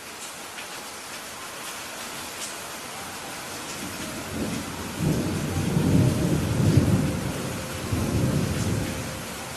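Steady rain falling while a roll of thunder builds about four seconds in, rumbles loudest over the next few seconds and fades away near the end.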